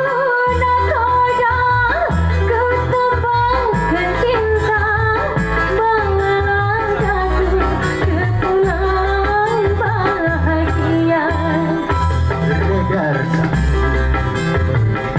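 Live dangdut music: a singer's wavering melody over a steady pulsing bass beat.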